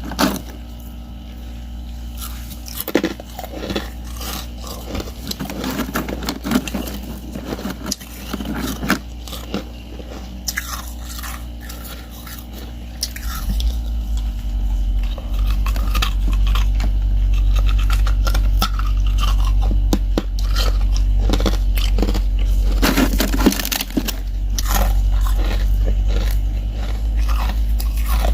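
A person biting and chewing crushed ice slab chips coated in powdery frost, with repeated crisp crunches. Under the crunching runs a steady low hum that becomes louder about halfway through.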